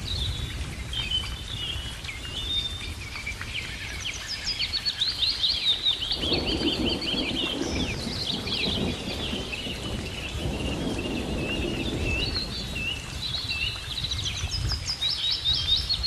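Small birds chirping and trilling continuously in quick, overlapping phrases, over a steady low rushing background.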